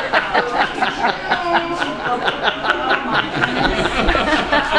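People laughing and chattering over one another in quick, broken bursts of voice.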